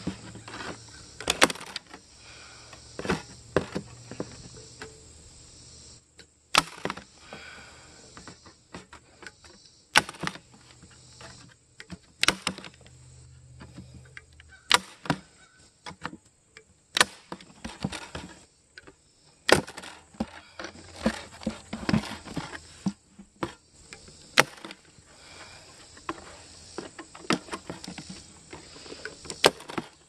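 Manual staple gun driving staples through stainless steel screen into a wooden beehive inner cover: about a dozen sharp snaps, one every two or three seconds, with softer clicks and rustles of the gun and screen being handled between shots.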